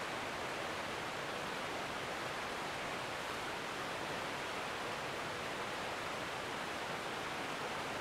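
Mountain stream rapids: a steady, even rush of flowing water.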